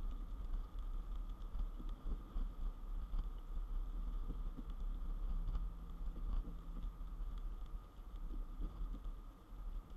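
Low steady rumble of a car driving on a wet highway, heard from inside the cabin, with faint ticks of rain hitting the windshield.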